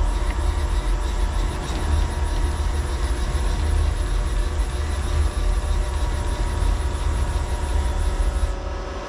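CNC mill's Z-axis drive raising the spindle head under hand-wheel control: a steady mechanical rumble with constant whining tones, which stops near the end.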